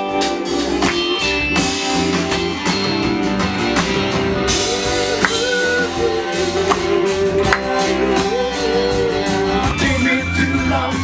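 A rock band playing a song with drums, bass and electric guitar and a sung lead vocal, on a steady beat.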